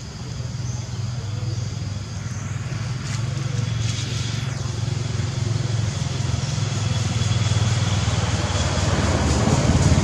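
A motor vehicle's engine running steadily nearby, growing louder through the stretch.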